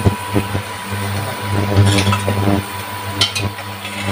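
A metal spoon stirring dal in an aluminium pressure cooker, with sharp clinks against the pot about two seconds in and twice more near the end, over a steady low hum.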